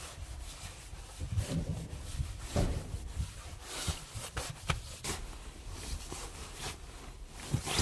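A goose-down sleeping bag's nylon shell and a down jacket rustling and rubbing as the bag is spread out and arranged, in irregular swishes with a few brief soft knocks.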